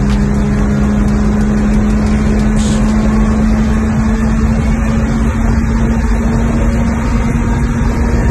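Car engine under sustained load, a loud steady drone whose pitch creeps slowly upward as the car keeps accelerating. It is heard from inside the cabin over road and wind rumble.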